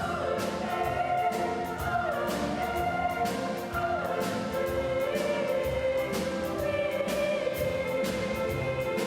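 Children's choir singing with a full orchestra accompanying, the voices holding long sustained notes.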